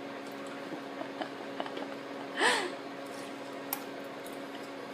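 Quiet room with a steady low hum, a few faint small clicks, and one short wordless vocal sound about halfway through, its pitch rising and then falling.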